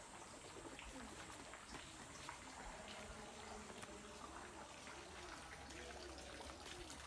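Faint trickle of running water, steady and low in level.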